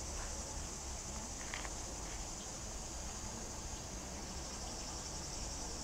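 Steady, continuous high-pitched chirring of summer insects, with a faint low rumble beneath it.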